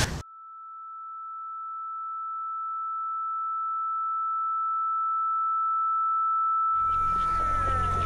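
A film's ringing-ears sound effect: one steady high tone that slowly grows louder while all other sound is cut out, marking the character stunned by her fall. About seven seconds in, outdoor background sound fades back in under the tone.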